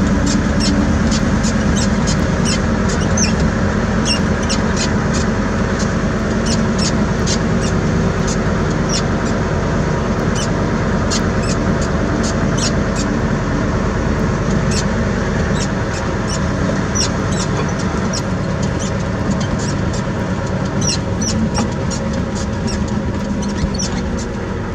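Heavy diesel engine running steadily, with a stream of sharp, high-pitched clicks or squeaks about twice a second over it.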